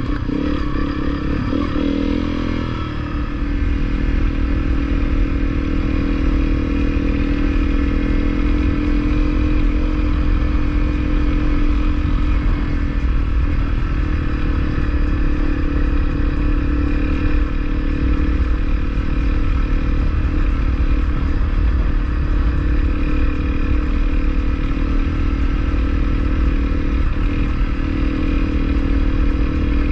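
Honda CRF250L single-cylinder dirt bike engine running under way on a rough trail, heard from the rider with heavy low rumble; the revs and loudness pick up about three seconds in, then hold steady.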